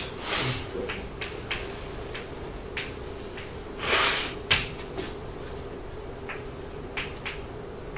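Chalk writing on a blackboard: a scatter of short taps and clicks, with two longer scratchy hissing bursts, one near the start and one about four seconds in, over a steady low room hum.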